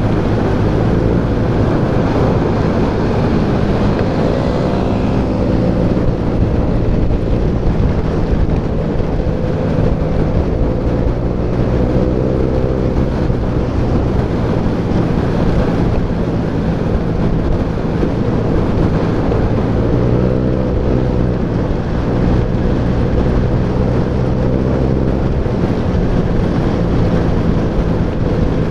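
Motor scooter engine running steadily at road speed under dense wind and road rush, the engine note shifting up and down in pitch a few times.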